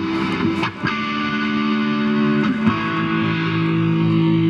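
Distorted electric guitar, a Les Paul-style guitar played through an amplifier, holding long sustained chords that change about a second in and again near two and a half seconds.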